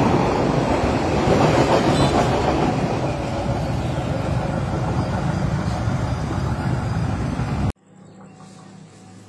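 Passenger train coaches running past close by: a steady, loud rumble and clatter of wheels on the rails, easing a little after about three seconds. It cuts off abruptly near the end, leaving only faint outdoor sound.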